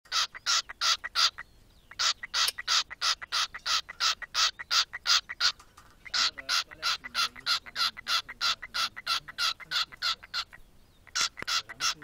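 A cockatiel calling in rapid runs of short, evenly spaced high chirps, about four a second, in four runs broken by brief pauses.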